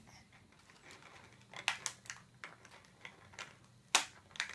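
A few sharp clicks and taps of hard plastic toy packaging being handled, the loudest about four seconds in.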